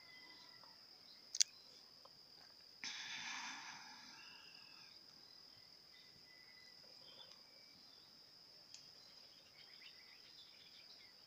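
Faint rural ambience with a steady high-pitched insect drone running throughout. A sharp click about a second in and a brief burst of noise about three seconds in.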